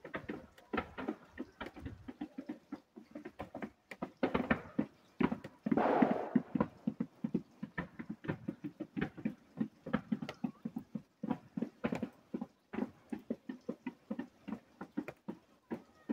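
Distant fireworks popping and crackling in a fast, irregular volley of sharp reports, with a louder, longer burst about six seconds in.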